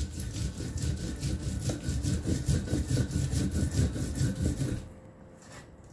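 Stone roller grinding a wet paste of dried fish, chilli, onion and garlic on a shil-pata stone slab: fast, rhythmic back-and-forth rubbing strokes of stone on stone. The grinding stops about a second before the end.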